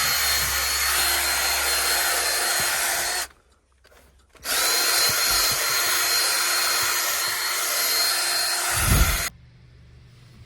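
A handheld power tool runs steadily with a hissing whine while it cleans a lathered car interior. It cuts out about three seconds in, starts again a second later, and stops near the end.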